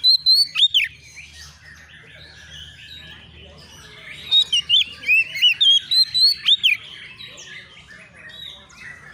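Oriental magpie-robin singing loud whistled phrases that sweep up and down, in two bursts: one at the start and another about four seconds in, with fainter chirping in between.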